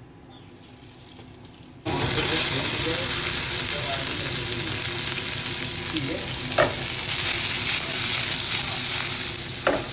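Food frying in hot oil in a pan, a dense, steady sizzle that starts suddenly about two seconds in. Two sharp clicks sound over it later on.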